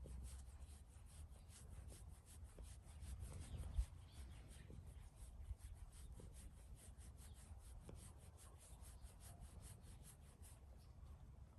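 Hand rubbing and massaging a cat's fur in quick, even strokes, about four a second, stopping near the end, with a brief thump about four seconds in.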